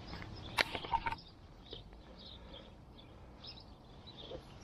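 Small birds chirping at intervals over a low outdoor hum, with a couple of sharp handling clicks and rustles within the first second.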